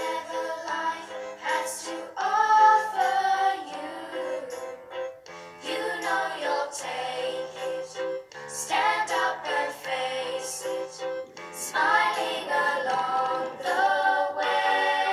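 Music with a sung melody over a bass line that steps from note to note.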